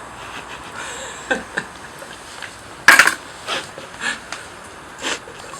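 A run of light clinks and knocks from tableware being handled, about half a dozen short hits, with one sharp, louder knock about three seconds in.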